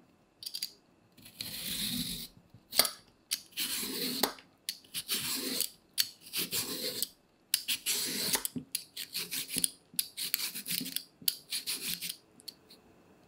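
Vegetable peeler drawn down a cucumber again and again, shaving it into long, thin ribbons: about ten rasping strokes, each half a second to a second long, with a few small clicks between them.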